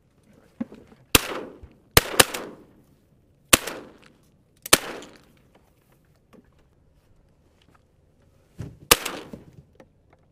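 Shotgun blasts during a duck hunt: five shots in the first five seconds, two of them close together, then a sixth near the end, each followed by a trailing echo.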